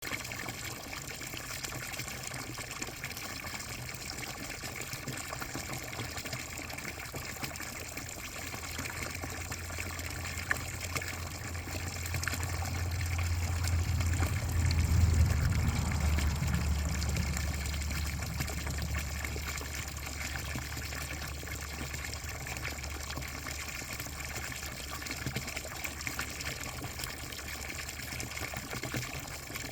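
Water running and splashing steadily. A low rumble swells in about a third of the way through, is loudest around the middle, then fades back.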